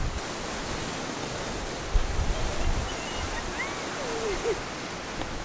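Steady open-air wash of wind and lake water along the shore, with a low gust thump on the microphone about two seconds in and a few faint short chirps in the middle.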